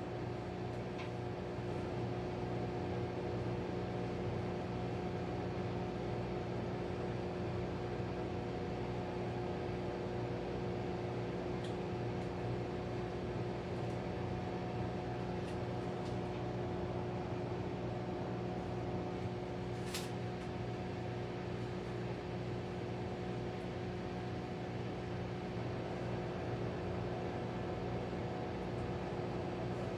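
Hamilton Beach microwave oven running, a steady, nice and quiet hum. A single brief click about twenty seconds in.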